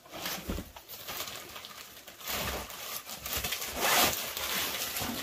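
Rustling of hanging garment bags and old coats being handled and pushed aside, coming in uneven swells.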